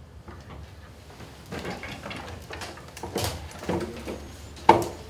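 Classroom chairs and desks scraping and knocking as people get up and move about, mixed with shuffling footsteps. One sharp knock near the end is the loudest.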